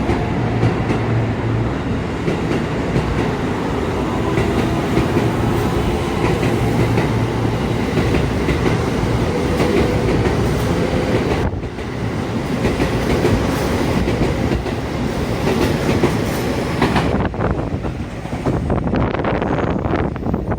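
Electric commuter train running past the platform, its wheels clacking over rail joints over a steady rolling noise, with a faint motor whine; the sound thins out near the end as the train moves off.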